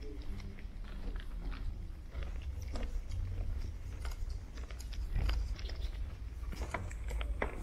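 Footsteps climbing stairs, heard as scattered irregular clicks and scuffs over a steady low rumble.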